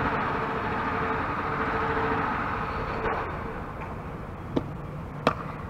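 Steady hum of a vehicle with a held tone, fading out about three seconds in. Near the end come short, sharp pops: the softball pitch smacking into the catcher's mitt.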